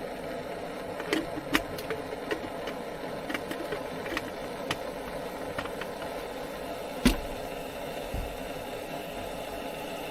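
Steady rain with irregular drops ticking on a hard surface, one heavier drop hitting about seven seconds in.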